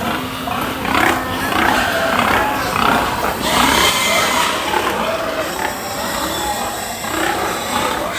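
Pigs calling, many at once, their calls overlapping without a break.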